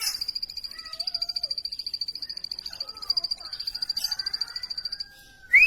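Plain prinia calling: a fast, even string of high notes, about ten a second, that breaks off about five seconds in, followed by a short rising whistle at the very end.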